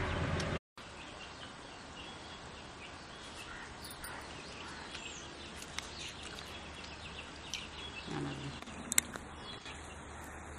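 Faint background ambience with scattered small bird chirps. A louder sound cuts off abruptly about half a second in; later there is a brief low sound and then a sharp click.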